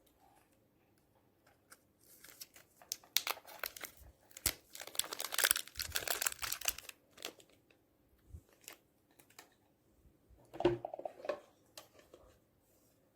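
Slime being squished and mixed by hand: dense crackling and popping clicks, busiest from about two to seven seconds in, with a shorter burst near the end.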